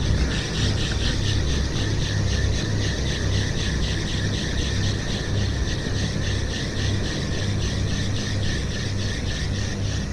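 Spinning reel being cranked steadily during a lure retrieve: a high whir from the turning gears and rotor that pulses evenly about four to five times a second, over a low rumble.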